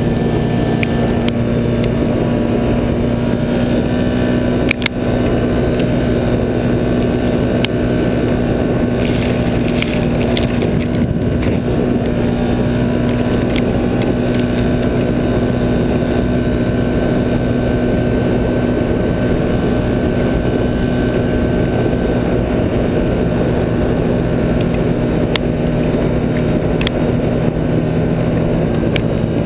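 Can-Am 1000 XT ATV on snow tracks running at a steady cruise, its Rotax V-twin engine droning evenly over the noise of the tracks. A single sharp knock about five seconds in.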